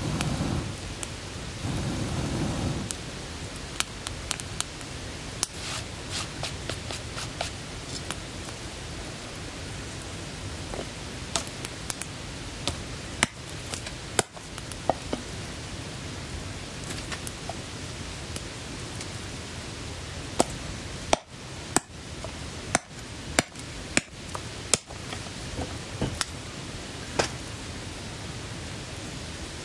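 Wood fire crackling and popping, with a low rush of flames in the first few seconds and scattered sharp pops after. Late on, a quick run of about seven sharp knocks.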